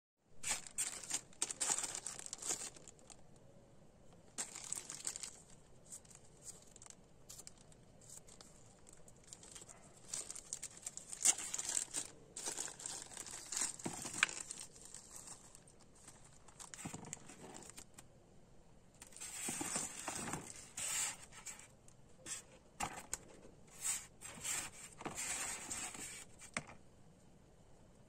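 Small clear zip-lock plastic bag crinkling in irregular bursts as it is handled and opened by hand, with quieter pauses between the bursts.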